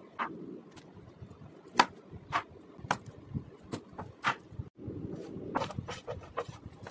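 Large kitchen knife chopping pineapple on a wooden cutting board: a series of sharp, irregular knocks as the blade goes through the fruit into the board, coming quicker near the end.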